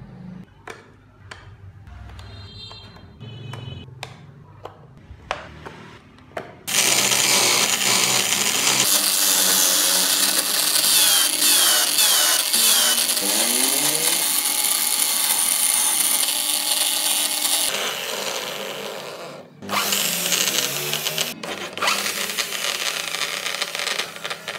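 Light clicks and taps, then about seven seconds in an electric drill clamped as a makeshift lathe starts up loud, spinning a wooden wheel blank while a hand chisel cuts into it. The drill stops briefly about two-thirds of the way in and runs again.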